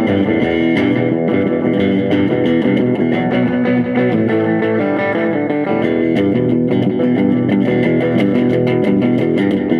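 Hollow-body electric guitar played with a pick: a run of notes and chords at a steady rhythm, with the picking quick and even in the second half.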